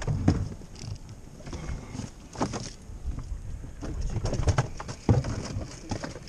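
Wind rumble on the microphone and water slapping against an inflatable boat's hull, with irregular knocks and clicks from handling gear on board, the sharpest about a third of a second in, near the middle and about five seconds in.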